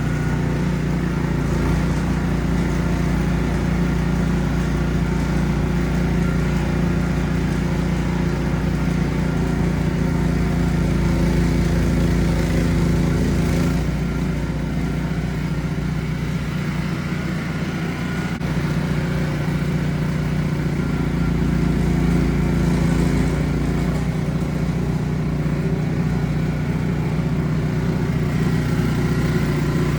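Ariens Platinum SHO 24-inch two-stage snow blower's small engine running steadily while clearing deep snow, its note shifting slightly a few times.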